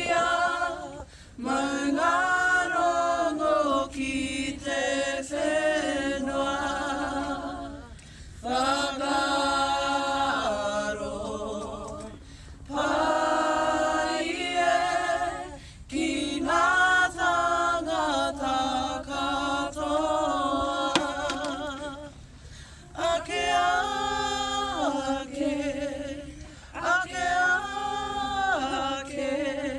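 A group of voices singing a Māori waiata in long phrases with a wavering pitch, with short pauses between phrases.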